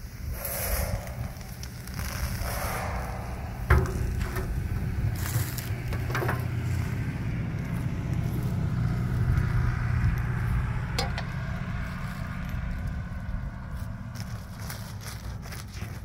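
Wood fire crackling under a griddle, with scattered sharp pops over a steady low rumble.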